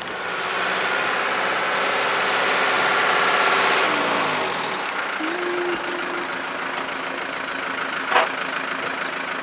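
Vehicle engine running with a steady noise, its pitch falling about four seconds in, with a single sharp click about eight seconds in.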